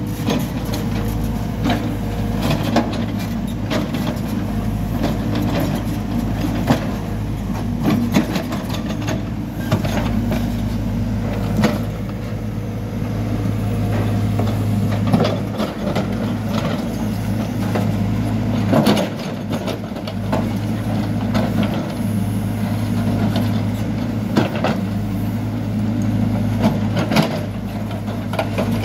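Hidromek backhoe loader's diesel engine running steadily under digging load while the rear bucket cuts into and scrapes soil, with frequent knocks and clanks of the bucket and stones throughout.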